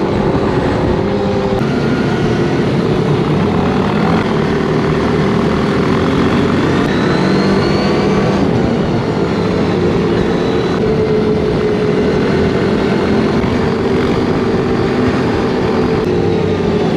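ATV engine running at a steady cruising speed, its pitch holding nearly constant, with wind and road rush around the rider.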